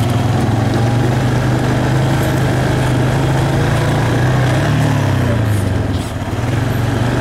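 Four-wheeler ATV engine running as it rides along a gravel trail, a steady drone whose pitch rises a little about four seconds in and eases off around six seconds.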